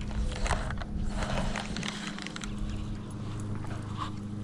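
Footsteps crunching over loose rock and gravel, a handful of irregular steps. A steady low hum comes in underneath part way through.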